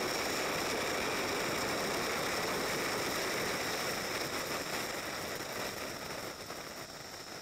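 Rushing wind and road noise from a motorcycle riding at speed, heard from the rider's seat, with the engine buried in it; it grows quieter over the last few seconds.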